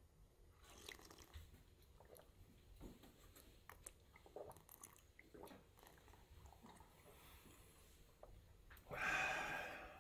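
A boy drinking from a metal bowl: faint sips, swallows and small mouth clicks, then a louder breathy exhale about a second long near the end.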